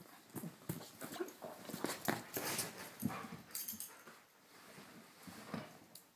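A hungry dog begging for food, whimpering and moving about in short, scattered sounds that thin out after about four seconds.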